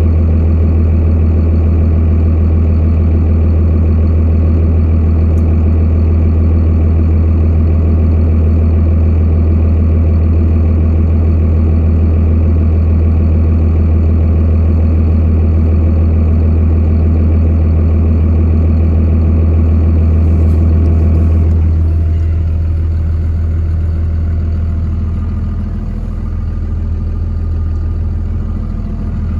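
Truck engine idling steadily, heard from inside the cab. About three-quarters of the way through it turns a little quieter.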